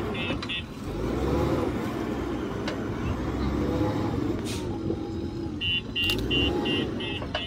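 JCB 3DX Super backhoe loader's diesel engine running, rising and falling in revs as the machine manoeuvres. Its reversing alarm beeps about three times a second in the first moment and again through the last couple of seconds.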